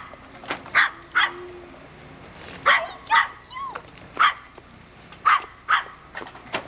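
A dog barking repeatedly in short, sharp barks, several of them in quick pairs.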